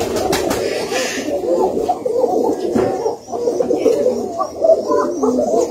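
A flock of Koka pigeons cooing, many birds calling at once so the coos overlap without a break.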